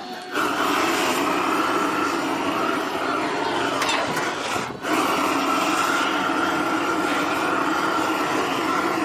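Gas blowtorch flame running steadily with a constant hiss and whistle, heating a copper cauldron for hand tinning. It breaks off briefly near the middle, then carries on.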